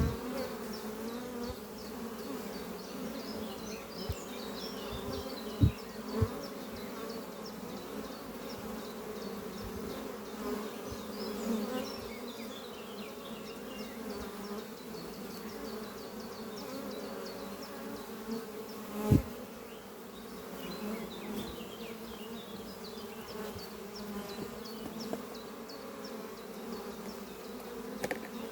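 Honeybees flying at their hive: a steady buzzing hum of many bees, with brief louder buzzes as single bees pass close, about six seconds in and again a little past the middle.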